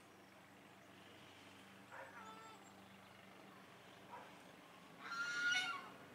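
Animal calls over a quiet background: a short call about two seconds in, a brief one about four seconds in, then a louder call lasting about a second near the end, each a high, pitched cry with overtones.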